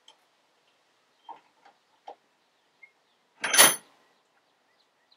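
Small metal clicks of handling at a steel bench vise, then one loud metallic clank with a short ring about three and a half seconds in, as the vise is loosened and the cut pin stock is freed.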